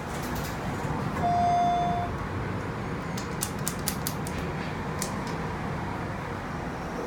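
A hydraulic elevator's single steady electronic beep, a little under a second long, about a second in, over a continuous low machinery hum. A quick series of sharp clicks follows around the middle.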